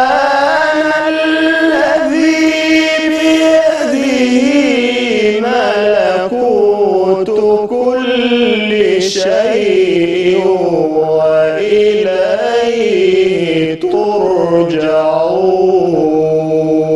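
A man's solo voice chanting an Arabic religious text, unaccompanied, in long ornamented held phrases. The pitch settles lower over the last few seconds, with a short breath break about fourteen seconds in.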